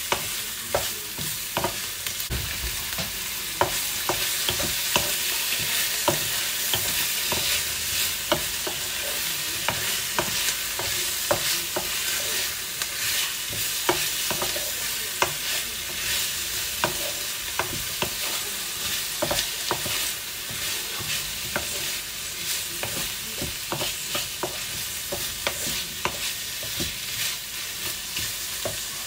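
Pak choy and red onion stir-frying in oil in a pan, sizzling steadily. A utensil clicks and taps against the pan at irregular intervals as the vegetables are stirred.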